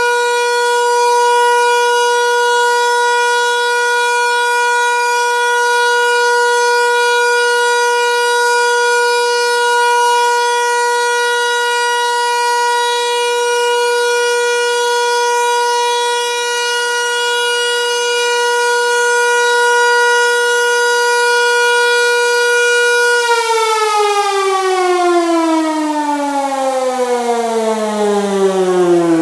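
Hörmann HLS 273 motor siren sounding the steady all-clear (Entwarnung) tone: one held pitch rich in overtones. About 23 seconds in it shuts off and winds down, the pitch falling steadily as the rotor coasts to a stop.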